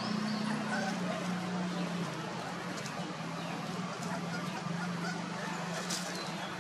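Young puppies whimpering, with a few short high squeaks near the start, over a steady low hum.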